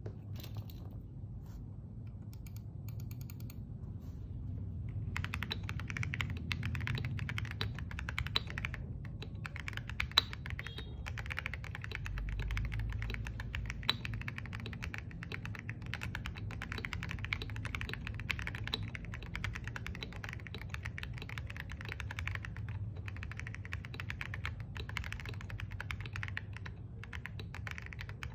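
Typing on a Star75 mechanical keyboard with Jelly Strawberry V3 switches and MSA-profile keycaps. A few scattered keystrokes come first, then about five seconds in, fast continuous typing begins, with the odd louder single keystroke.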